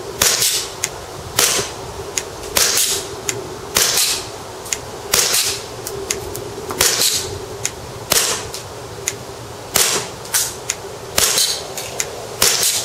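Tokyo Marui M&P9 gas blowback airsoft pistol firing about ten single shots, one every second or so. Each shot is a sharp crack of gas and the slide cycling, with fainter clicks between shots.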